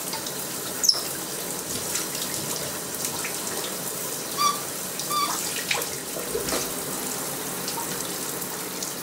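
Shower running steadily, its spray giving an even hiss. A sharp knock comes about a second in, and two short high squeaks come about halfway through.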